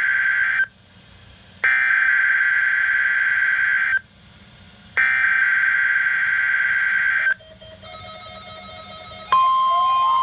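Emergency Alert System SAME header on a NOAA Weather Radio broadcast, played through a weather radio's speaker: the end of one raspy digital data burst, then two more full bursts about a second apart. About nine seconds in, the steady 1050 Hz weather radio warning alarm tone starts, with a fainter tone rising and falling beneath it. Together they mark the start of a required weekly test alert.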